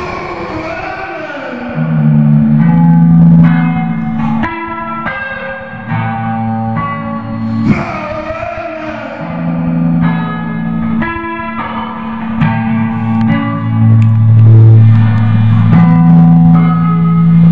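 Electric guitar played through an amplifier: picked notes ringing out over long held low notes that change every couple of seconds.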